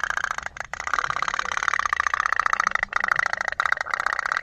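Tin pop-pop steam boat toy running: its candle-heated boiler puts out a fast, even putt-putt, breaking off briefly a couple of times.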